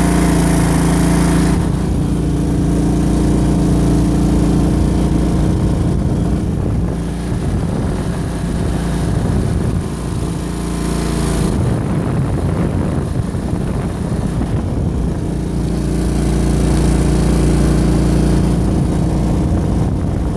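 Go Devil mud motor running steadily. About two seconds in, its even pitch turns rougher and noisier as the engine changes speed, then it settles to a steady pitch again near the end.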